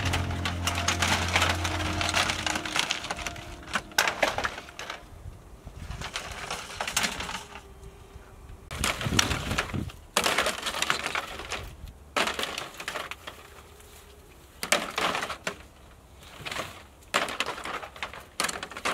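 Empty plastic produce crates clattering and scraping as they are thrown one at a time onto a heap of other crates, a burst of clatter every couple of seconds with short pauses between.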